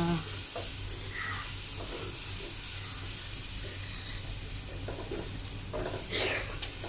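Garlic and ginger frying in hot oil in a stainless steel pot, sizzling with a steady hiss as they are stirred with a wooden spatula.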